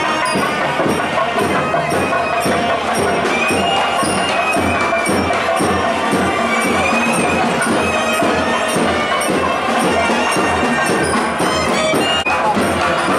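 Nadaswaram and thavil playing traditional South Indian temple music: a wavering double-reed melody over quick, steady drum strokes.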